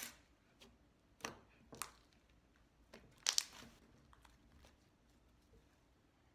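Butter slime, stiffened with cornstarch, being kneaded and pressed by hand on a tabletop: a handful of short crackles and pops, the loudest pair a little over three seconds in.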